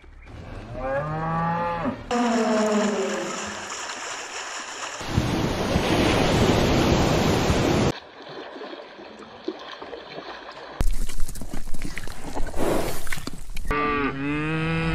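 Cattle mooing: two drawn-out, falling moos near the start and more moos near the end. Between them are stretches of loud, steady rushing noise.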